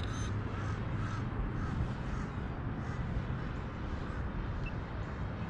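Crows cawing several times over a steady low outdoor rumble.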